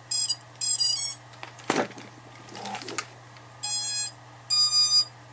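Diatone GTR-90 quadcopter's ESCs playing their startup tones through the brushless motors as a fully charged LiPo is plugged in: two quick bursts of stepped beeps near the start, then two longer beeps near the end. Brief handling noise comes in between.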